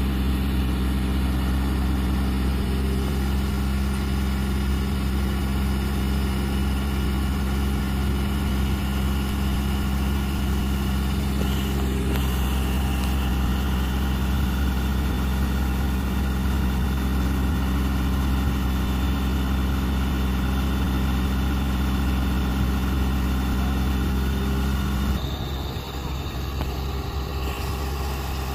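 Heavy 8x8 military truck's diesel engine idling steadily, a deep even hum, with a shift in the sound about 25 seconds in.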